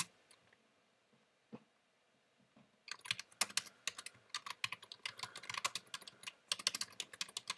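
Typing on a computer keyboard: one lone key tap about a second and a half in, then rapid keystrokes in quick bursts from about three seconds in.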